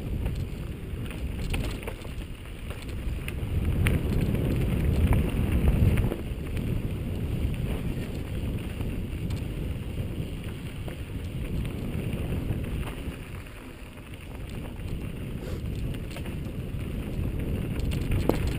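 Wind rushing over a helmet-mounted camera's microphone as a mountain bike descends a dirt singletrack, with scattered clicks and rattles from the bike and its tyres on the trail. The wind noise is loudest about four to six seconds in.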